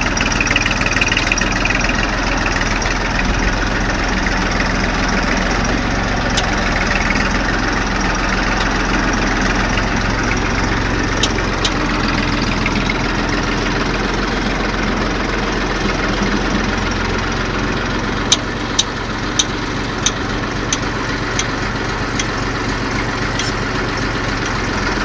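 Engine running steadily at a constant speed, with a run of sharp clicks about eighteen to twenty-one seconds in.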